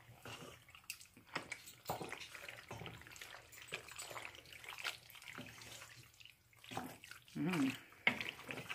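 Wooden spoon stirring pasta into a thick cheese béchamel in an enamelled pot: wet, squelching strokes in an irregular rhythm.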